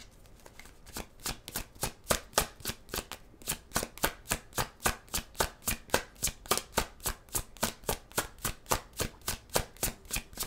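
Tarot deck being shuffled in the hands: an even run of quick card slaps, about five a second, starting about a second in.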